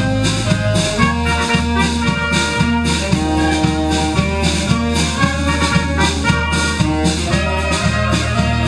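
Youth wind band playing live: trumpets and flutes carry the tune over a low bass line and a steady beat.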